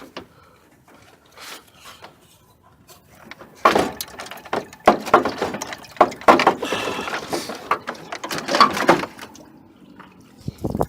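Clunks, knocks and scraping of an old car radiator being worked loose and pulled out of the engine bay. There are a few faint knocks, then a loud run of clattering and rattling from about four seconds in until near the end.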